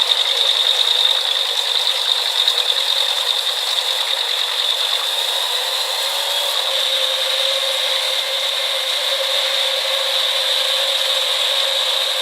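Truck-mounted drum wood chipper running and chipping wood: a continuous mechanical clatter with a strong high-pitched hiss, its texture shifting slightly about halfway through.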